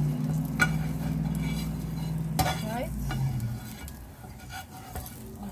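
Slotted spatula scraping and clicking against a frying pan as fried chicken wings are moved, with a light sizzle from the pan. A steady low hum runs underneath and stops a little past halfway.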